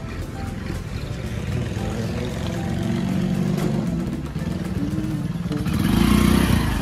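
An engine running steadily, growing louder about six seconds in.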